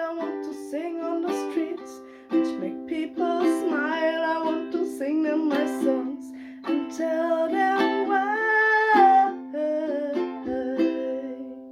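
A male voice singing the closing lines of a pop song, accompanied by a strummed acoustic string instrument. Near the end the last chord is held and fades out.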